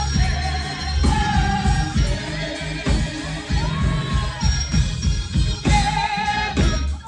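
Live gospel band and singers performing: a steady drum beat and bass under sustained, sliding sung notes.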